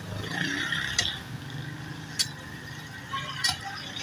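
Long-handled digging tool striking rubble and hard ground, three sharp blows about a second apart.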